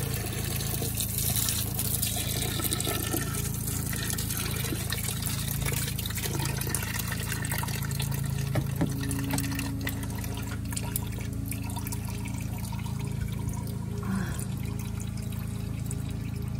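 Windshield washer fluid draining steadily out of a truck's washer reservoir where the pump has been pulled from the bottom, over a steady low hum.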